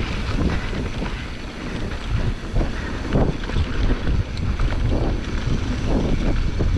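Wind buffeting the microphone as a mountain bike rolls fast down a dirt trail, with irregular knocks and rattles from the bike going over bumps.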